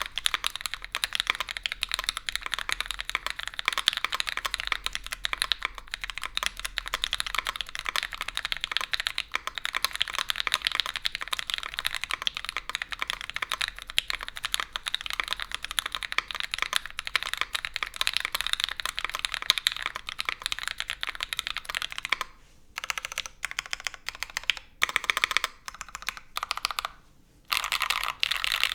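Fast, continuous typing on a Keycult No.2 Rev.2 custom mechanical keyboard with Gateron Oil King linear switches, GMK keycaps and a full aluminium leaf-spring plate with no foam. In the last several seconds the typing breaks into short bursts with brief pauses, then runs steadily again near the end.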